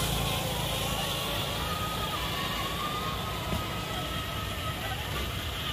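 Electric motor of a radio-controlled toy car whining, its pitch wandering up and down as the car speeds up and slows, over a steady background hiss.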